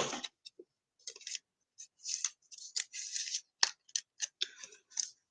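Trading cards being handled: card stock sliding and rubbing in a string of short scrapes, with a few sharp clicks.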